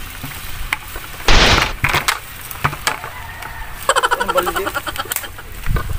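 A plastic bucket tossed to the ground, landing with a loud clatter a little over a second in. A smaller knock follows, then a quick run of rattling clicks near the middle.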